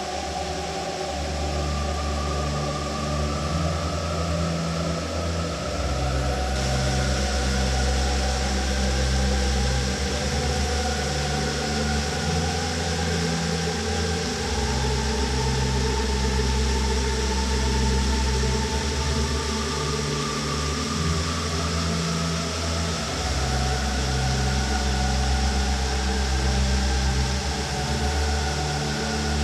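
Steady rushing of a waterfall, mixed with slow ambient background music of sustained low notes that change every couple of seconds.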